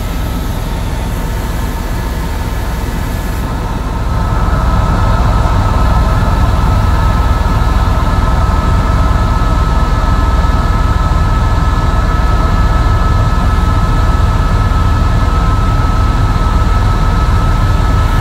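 Helicopter cabin noise: a steady loud drone of rotor and engine with a thin high whine over it. It grows louder about four seconds in.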